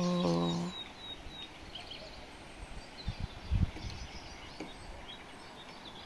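Quiet outdoor evening ambience: small birds chirping faintly, with a quick run of high chirps about a second in, over a low steady background hiss. A couple of low thumps around the middle, likely wind or handling on the phone's microphone.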